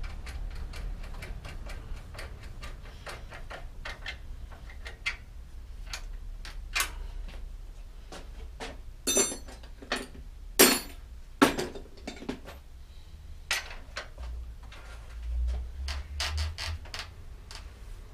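Bicycle repair work on a rear wheel: a run of light metallic ticks that slows and spaces out over the first five seconds, then several sharp metal clanks, one with a short ring, around the middle, and a few lighter taps near the end.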